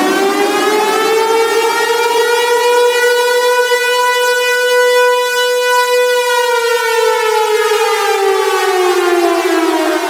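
Siren sounding one slow, loud wail. The pitch is still climbing at first, levels off high about three seconds in, and slides slowly down from about six seconds in.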